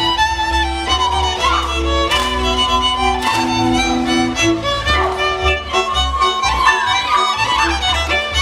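Live folk band playing a dance tune: a fiddle carries the melody over a pulsing bass line from a double bass.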